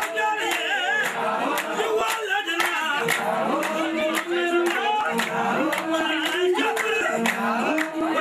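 A group of voices singing together over steady rhythmic handclapping, about two claps a second.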